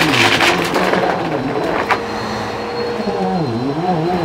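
Bissell vacuum cleaner running as it is pushed back and forth over carpet, with a rushing hiss at the start and a click about two seconds in. Its motor hum wavers in pitch and dips briefly before recovering near the end.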